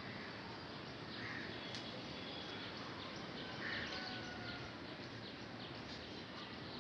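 Birds chirping, with short high calls and a run of quick chirps in the middle, over a steady outdoor background hiss.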